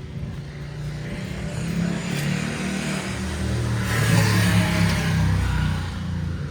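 A car driving past: engine and tyre noise that builds to a peak about four seconds in, then fades away.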